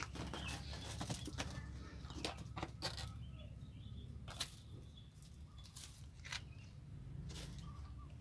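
Kittens scrambling and pawing against a woven plastic sack and loose plastic strands: irregular rustles and small scratching clicks, busiest in the first half, over a low steady hum.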